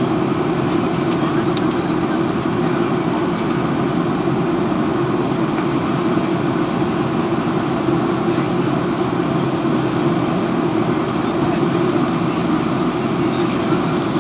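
Steady cabin roar of a Boeing 737-700 in flight, heard inside the cabin: its CFM56-7B jet engines and the rushing airflow make an even, unbroken noise.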